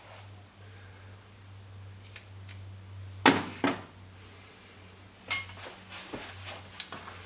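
Small metal parts and hand tools clinking and knocking: a couple of light clicks, two sharp knocks a little after three seconds in, then a ringing metallic clink a little after five seconds. A steady low hum runs underneath.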